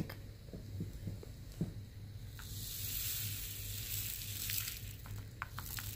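Tiny resin diamond-painting drills poured from the spout of a plastic drill tray into a plastic storage compartment, a steady hissing trickle that starts a couple of seconds in. It follows a few light clicks of the plastic tray and case being handled.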